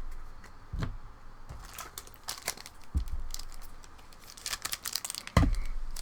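Foil wrapper of a trading-card booster pack being torn open and crinkled, with dull thumps about a second in, about three seconds in, and a louder one near the end as the cards are handled on the table.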